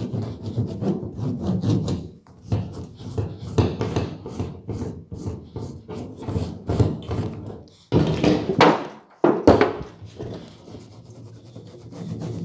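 Woven stainless steel mesh grille panel being wiped by a gloved hand with a rag: quick, irregular, scratchy rubbing strokes against the wire weave. Two louder scrapes come about two-thirds of the way in.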